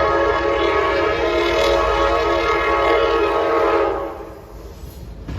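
Amtrak passenger train's horn sounding one long, loud, steady chord that cuts off about four seconds in, with the low rumble of the train running underneath.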